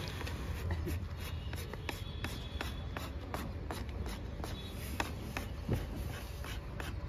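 A hand blade paring an ox's hoof horn: an irregular run of sharp scrapes and clicks as the blade cuts, over a low steady rumble.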